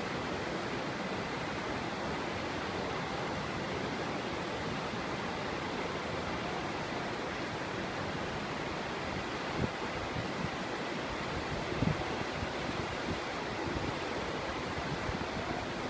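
River rapids rushing steadily, a continuous whitewater hiss spread evenly across low and high pitches. A couple of brief low thumps come about ten and twelve seconds in.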